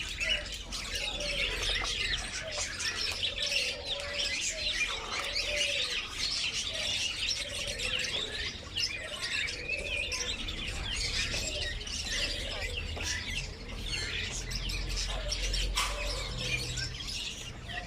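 Many caged birds chirping and tweeting at once in a dense, unbroken chorus, with some lower wavering calls underneath.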